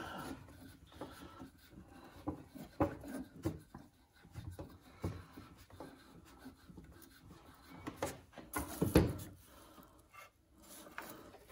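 Hand-adjusting a thickness planer: light rubbing and scraping with scattered small clicks as its height screw is turned and a steel parallel is slid against it. There is a louder scrape about nine seconds in.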